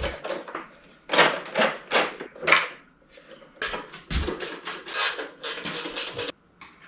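Hand tools and metal motorcycle parts clinking, scraping and knocking in irregular bursts as a small bolt-on toolbox is taken off the bike.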